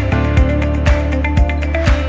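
Electronic background music with a steady beat: a kick drum about twice a second, a sustained bass line and synth notes.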